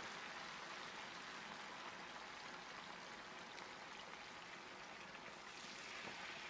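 Chicken wings coated in cornstarch slurry deep-frying in hot oil: a faint, steady bubbling sizzle.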